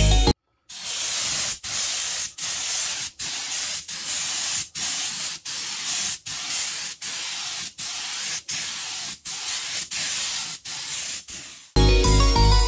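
Compressed-air spray gun hissing as it sprays a leather top coat onto a car seat, a steady hiss broken by brief gaps about every three quarters of a second. Background music plays briefly at the very start and returns near the end.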